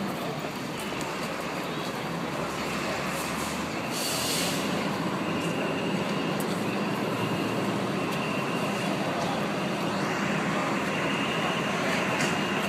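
Fire engines running at the scene of a vehicle fire: a steady mechanical drone with a constant hum, and a brief hiss about four seconds in.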